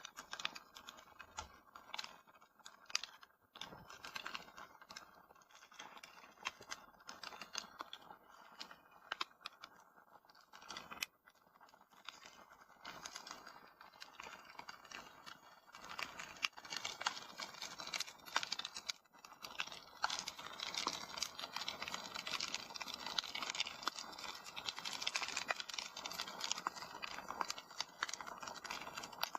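Wood fire crackling in a fireplace: irregular sharp pops and snaps over a steady soft hiss, growing denser about halfway through.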